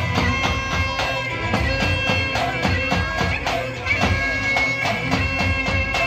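Turkish Roman havası dance music: a nasal, reedy wind-instrument melody holding long notes over a steady, driving drum beat.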